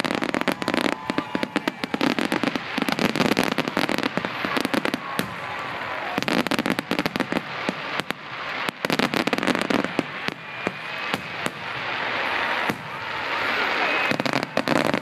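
Fireworks grand finale: a dense, nonstop barrage of shell bursts, the bangs following each other so fast they run together.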